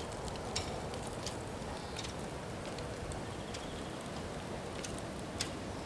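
Steady outdoor background hiss at an idle level crossing, with faint, short high ticks scattered irregularly about once a second.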